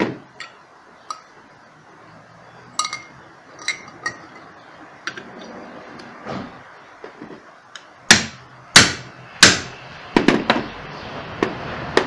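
Hammer tapping a metal punch to peen the small retainer cap that holds a fan-motor bushing in the motor's end cap. First come scattered light clinks, then three sharp metallic strikes about two-thirds of a second apart some eight seconds in, followed by a few lighter knocks.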